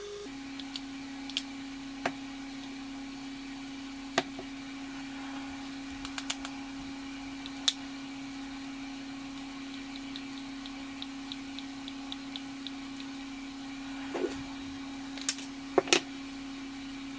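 Hard plastic clicks and knocks from a pressure washer gun's housing halves and red trigger being handled and fitted together, a few sharp single clicks spread out, then several louder knocks near the end. A steady hum runs underneath.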